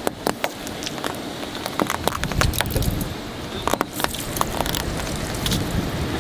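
Car tyre rolling over and crushing brittle objects: a scattered string of sharp cracks and snaps over the low rumble of the car.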